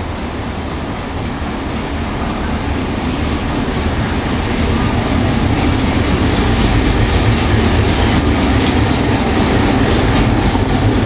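China Railway DF11 diesel locomotive hauling a passenger train through the station without stopping. The rumble of its engine and wheels grows louder as it approaches, then holds as it passes. Wheel clicks over the rail joints come near the end.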